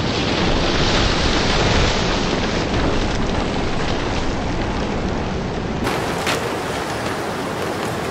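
Tornado wind and rain battering a car, heard from inside the cabin: a dense, steady roar, with one sharp knock about six seconds in.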